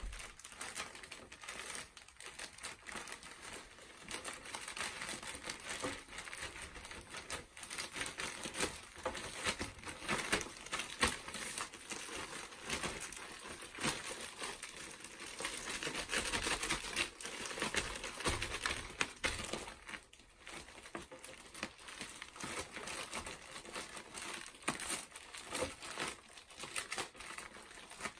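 Plastic poly mailer crinkling and crackling irregularly as a rolled-up jacket is pushed into it and the bag is squeezed flat.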